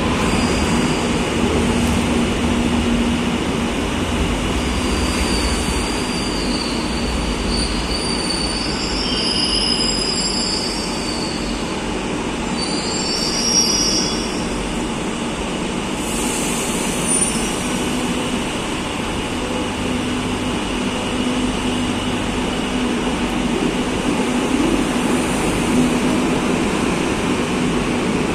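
Madrid Metro series 2000A electric train at an underground platform: a steady rumble and hum of the train, with high whining tones that come and go through the middle stretch. Near the end the cars are moving past close by.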